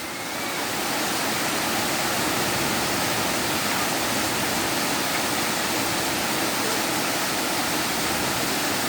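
Rain falling steadily, a constant even hiss that gets a little louder just after the start.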